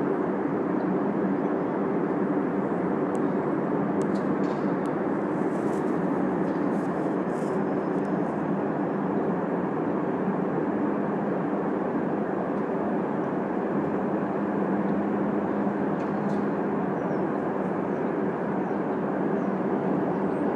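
Aircraft engine run-up at the airport heard from a distance: a steady, even roar that echoes back off surrounding buildings.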